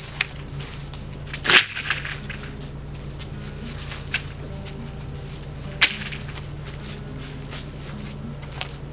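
Long PVC pipes and a metal ladder being handled: a loud clatter about a second and a half in, then a few lighter knocks, with footsteps crunching through dry leaves. A steady low hum runs underneath.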